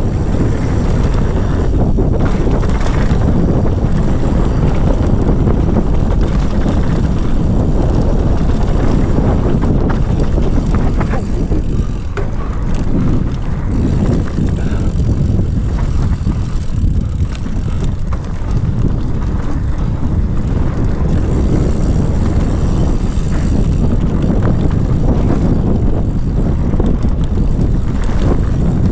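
Mountain bike riding fast down a dirt trail: wind buffeting the camera microphone over the tyres rolling on dirt, with steady small rattles and knocks from the bike over bumps. The noise eases briefly a couple of times near the middle.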